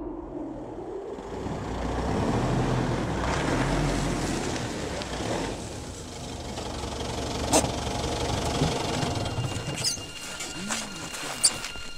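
Car engine running at idle, a steady low rumble, with a few sharp clicks and knocks in the second half.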